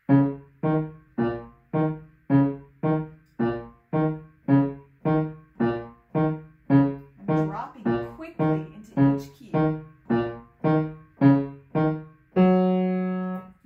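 Grand piano played with a separated, detached touch, each key dropped into quickly and let go: a steady run of short, evenly spaced low notes at about two a second, ending on one longer held note near the end.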